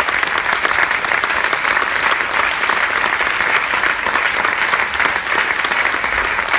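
Audience applauding, a steady dense clapping that holds at the same strength throughout.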